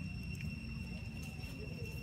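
Steady high-pitched insect drone over a low rumble.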